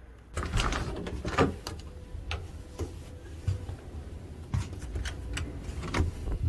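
Irregular knocks and clicks over a low rumble of wind buffeting the microphone, starting abruptly just under half a second in.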